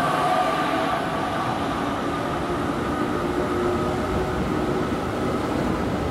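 Train running alongside a station platform: a steady rumble of wheels on rail with faint, slowly drifting whining tones over it.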